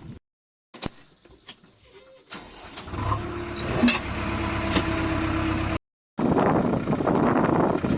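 Heavy earthmoving machine's engine running, in pieces split by two brief cuts to silence. For the first few seconds a loud, steady high-pitched beep sounds over it.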